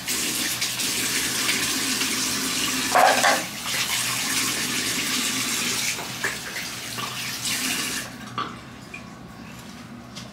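Water running from a tap into a sink, with a short louder burst about three seconds in; the tap is shut off about eight seconds in.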